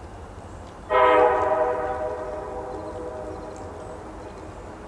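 CSX freight locomotive's air horn sounding one short blast about a second in, then fading away over the next few seconds, over a steady low rumble.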